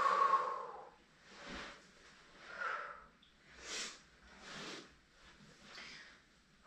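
A person breathing hard while exercising: a strong, effortful exhale at the start, then softer breaths about once a second.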